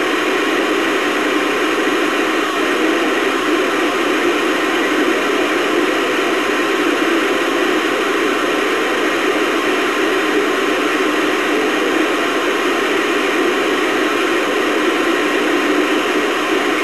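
CB radio receiver hissing with steady static, no station coming through.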